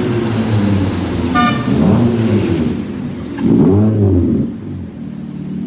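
Car engine running and revving, its pitch rising and falling in swoops, with a brief high-pitched tone about a second and a half in.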